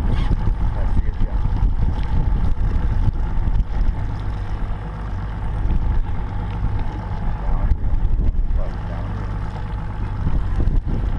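Small fishing boat's motor running steadily at low speed, with wind rumbling unevenly on the microphone.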